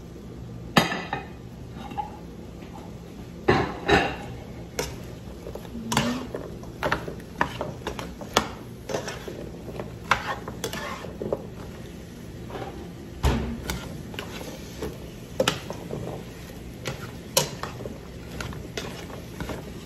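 A spatula stirring and tossing chopped vegetables in a frying pan, knocking and scraping against the pan in irregular clatters, loudest about a second in and again about four seconds in.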